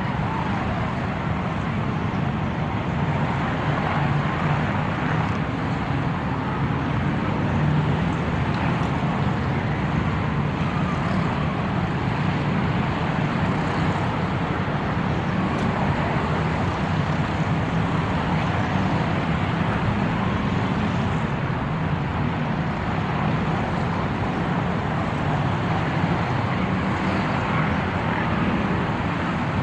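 Steady motor-vehicle traffic noise: engines and tyres running without pause, with a constant low engine hum and no single vehicle standing out.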